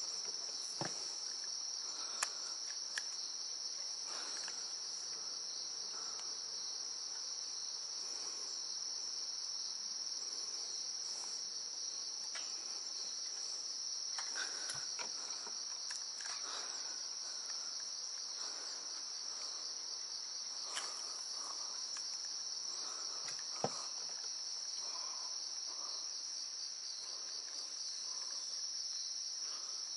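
Insects chirping in a steady high-pitched chorus, with scattered faint clicks and knocks, one sharper knock about three-quarters of the way through.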